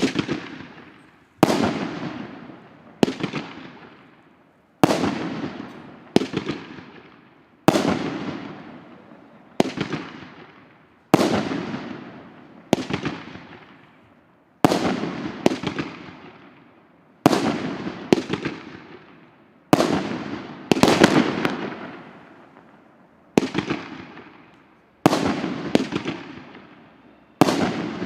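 A 25-shot, 2-inch-calibre consumer firework cake firing in sequence: a sharp bang every one to two seconds, each followed by a fading crackle as the shell bursts.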